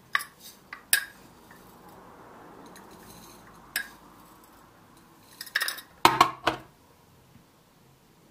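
Metal spoon clinking against a glass clip-top jar while scooping rolled oats out of it, with a soft rustle of the oats between the clinks. The loudest cluster of clinks comes about six seconds in.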